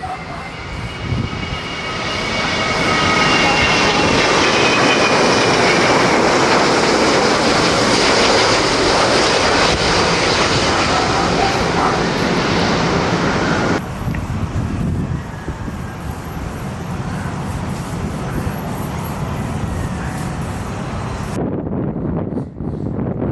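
Jet airliner engines passing close: loud, steady jet noise with a whine that falls slowly in pitch in the first few seconds. The noise drops abruptly about 14 s in to quieter, more distant jet noise, and changes abruptly again near the end.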